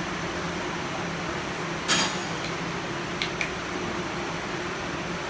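A sharp metallic clank about two seconds in, followed a second later by two lighter clicks, over a steady machine hum.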